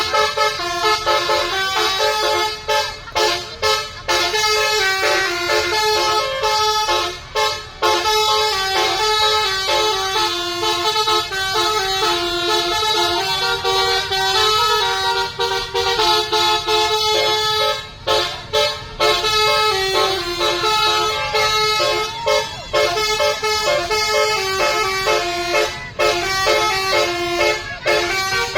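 Basuri telolet horn, a multi-trumpet musical air horn, playing a tune note by note, with short breaks between phrases.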